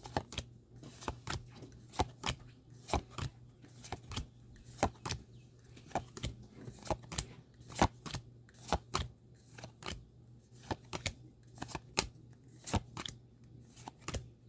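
Pokémon trading cards being flicked one at a time off a stack, a quick papery card-on-card snap about two or three times a second at an uneven pace, over a faint steady low hum.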